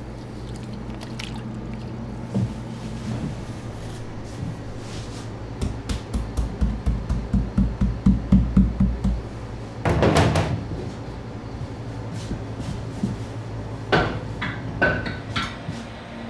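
Flour shaken out of a plastic dough tub into a large stainless steel pot: a run of low thumps, about four a second, growing louder over a few seconds, then a louder scraping knock about ten seconds in. A few light clicks and knocks follow near the end, over a steady low hum.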